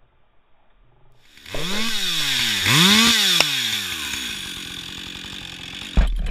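Two-stroke chainsaw revved hard twice, its engine pitch rising and falling with each rev, then dropping back slowly, as the running chain is used to open a glass bottle. A sharp tick comes about halfway through, and a low rumble near the end.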